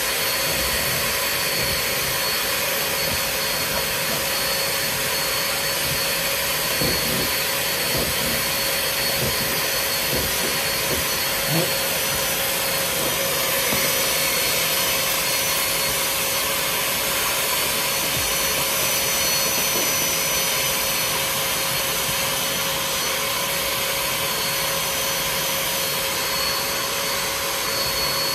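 Vacuum motor running steadily with a constant whine while a hose nozzle works over car floor carpet. A few light knocks of the tool come partway through.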